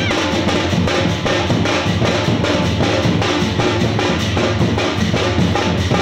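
A drum band playing a fast, steady dance beat, with dense repeated strikes and a booming bass drum.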